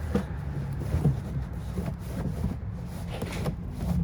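A car engine running at low speed nearby, a steady low hum, with a few light knocks over it.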